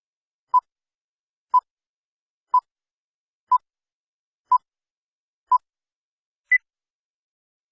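Film-leader countdown beeps: six short electronic beeps at one pitch, one a second apart, then a final beep about an octave higher.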